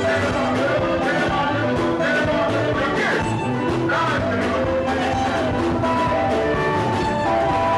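Music with a steady beat and held instrumental notes.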